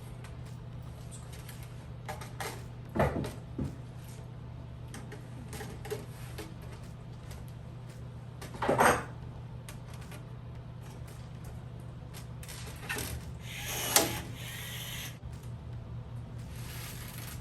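Parts of an airframe kit being handled on a workbench: a few scattered clunks and rattles, the loudest about three, nine and fourteen seconds in, over a steady low hum.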